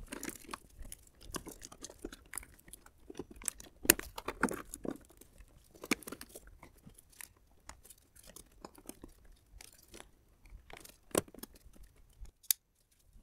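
Plastic wiring-harness connectors and ribbed cable conduit being pushed and sorted by a gloved hand: irregular small clicks, knocks and rustling, with a few sharper plastic clicks.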